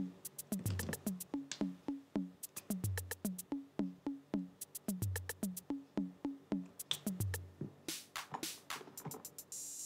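Background lofi music: a steady drum-machine beat of low kick thumps and sharp ticks under a repeating figure of short low notes. From about eight seconds in, brighter hissy hits take over the high end.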